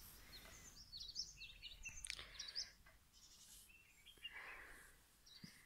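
Faint birds chirping: quick runs of short, high notes in the first half and another short call about four seconds in.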